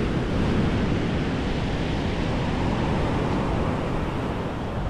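A steady rush of wind buffeting the microphone, with surf breaking on the beach.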